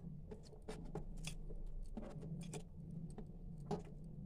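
Scattered light taps and clicks as chopped green onion is tipped and scraped out of a stainless-steel bowl into another steel bowl of grated cabbage, the metal rims knocking now and then. A faint steady low hum runs underneath.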